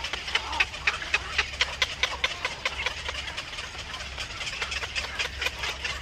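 Black-crowned night heron nestlings calling at the nest: a rapid run of dry clicks, about five a second, over a steady low hum.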